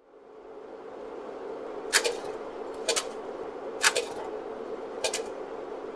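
Steady room hum fading in, with four sharp clicks, most of them doubled, about a second apart starting about two seconds in.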